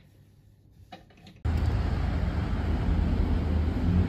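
Quiet room tone with a few faint clicks, then, from about one and a half seconds in, a sudden loud, steady rumble of street traffic.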